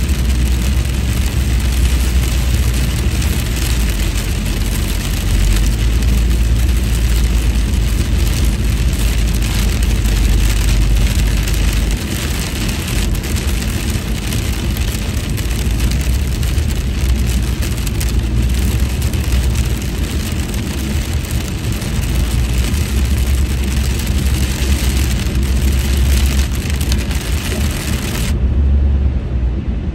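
Car cabin on a rain-soaked freeway: a steady low road rumble under a constant hiss of rain and tyre spray on the car. Near the end the hiss cuts out for about a second and a half while the car passes under an overpass.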